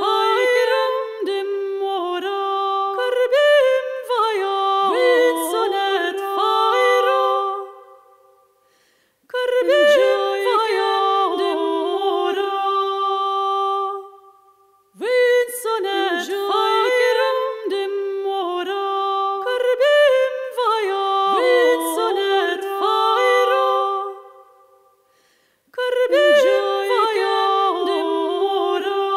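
Unaccompanied solo voice singing a slow melody, with notes held and sliding between pitches. It sings in phrases of several seconds, with three short pauses between them.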